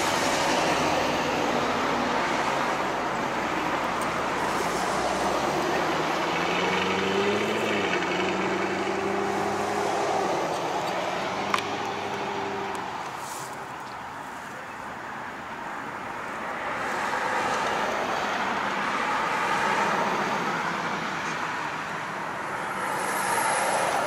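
Street traffic: cars and trucks driving past, with one vehicle's engine rising in pitch about six to eight seconds in and holding steady for a few seconds. It starts just as a siren finishes winding down.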